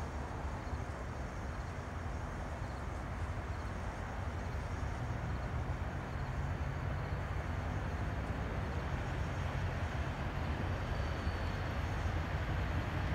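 CSX diesel locomotive at the head of a double-stack container train, its engine drone and the train's low rumble growing steadily louder as it approaches.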